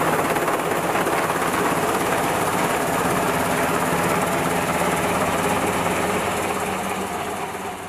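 Helicopter's turbine engines and rotor running steadily, fading out near the end.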